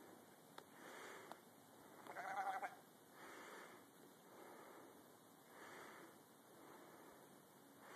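A sheep bleats once, briefly, about two seconds in, over faint soft rushing noise.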